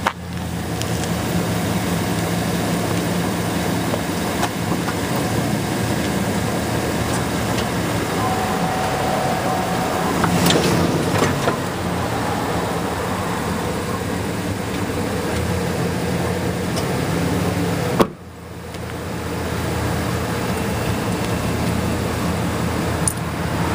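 Chevy Silverado 2500 HD pickup's engine idling steadily close by as the truck backs away from its unhooked Western Pro Plow, with a brief dropout about eighteen seconds in.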